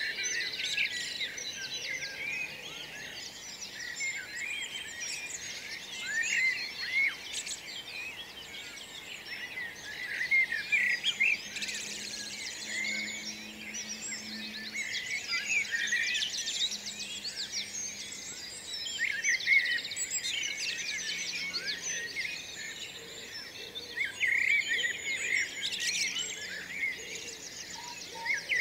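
Dawn chorus: many songbirds singing at once, a dense, continuous mix of overlapping chirps, whistles and trills.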